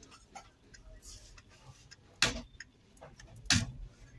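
Handling clicks and taps from work on a circuit board with a soldering iron: two sharp clicks about a second and a half apart, with a few fainter ticks between them.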